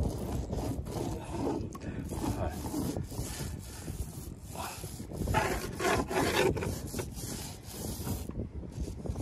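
Paint roller rubbing back and forth over a boat hull, spreading thick, creamy resin paint in uneven rolling strokes.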